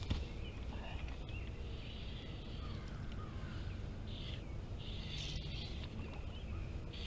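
Outdoor ambience: a steady low wind rumble on the microphone, with several short, high bird calls over it.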